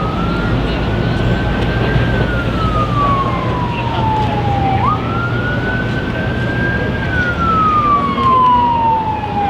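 Emergency vehicle siren wailing: the tone jumps up quickly, climbs a little, then falls slowly, a cycle of about five seconds, heard twice with a third rise near the end. Low street traffic hum runs underneath.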